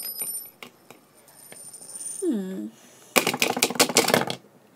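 Rapid plastic clicking and rattling for about a second, from small plastic toys being handled and pressed against a toy vending machine, with scattered lighter clicks before it.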